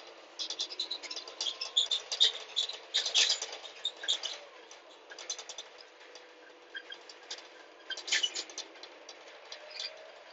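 Irregular crackling and rattling clicks inside a moving city bus, thickest in the first half and again near the end, over a faint steady hum.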